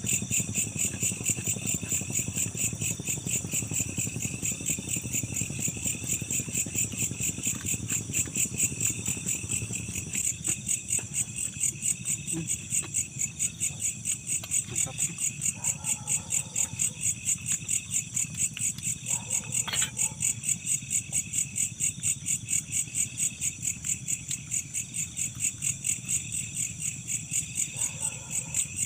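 Night insects chirping in a steady chorus of rapid, even pulses, high-pitched, with a second lower band of calls beneath.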